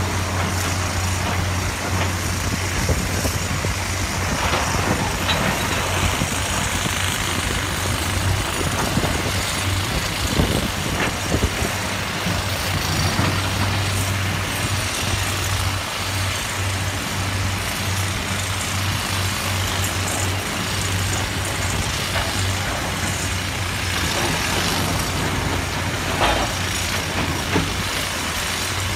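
Heavy diesel earthmoving machinery running steadily, with a low engine drone and a few sharp knocks of rock.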